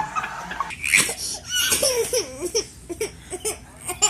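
Baby laughing in a quick series of short, high-pitched giggles.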